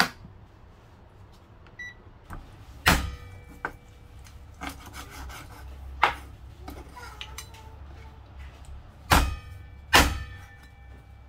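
A cleaver chopping chicken wings into pieces on a wooden cutting board: about five sharp chops, the last two close together near the end, with the blade scraping and rubbing on the board in between. A short electronic beep near the start comes from a Panasonic rice cooker as its button is pressed.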